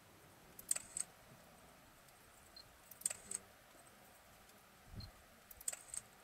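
Three short bursts of sharp clicks about two and a half seconds apart, with a soft low thump about five seconds in.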